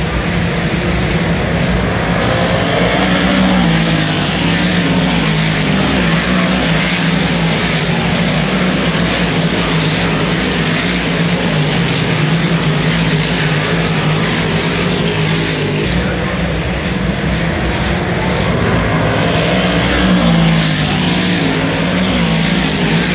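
Big-block dirt modified race cars' V8 engines running hard as the field laps the track. It is a loud, continuous engine noise that swells and eases as cars pass close by.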